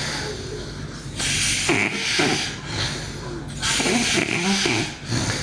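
A girl snoring in her sleep: about two breaths, each a hissing rush of air with a rough, low snore between them.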